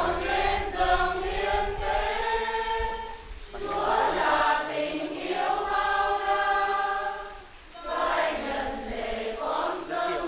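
Church choir singing a hymn in long held phrases, with short breaks about three and eight seconds in.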